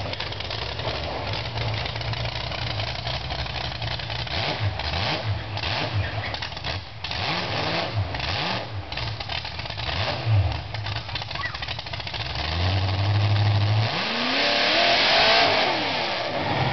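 Mud truck's small-block Chevy V8 running and revving in repeated short blips, then held steady and revved hard with a rising pitch and louder near the end.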